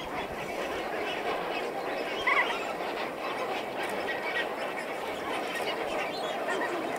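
Large flock of lesser flamingos calling: a dense, continuous chatter of overlapping honks, with one louder honk a little over two seconds in.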